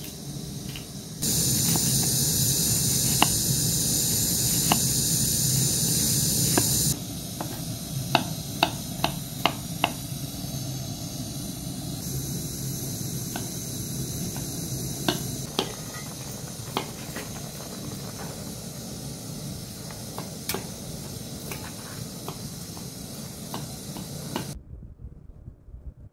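Knife tapping against a wooden cutting board as an onion is cut, in irregular sharp clicks that bunch together around the middle. Under it runs a steady hiss from the pot on the gas burner, louder for the first few seconds.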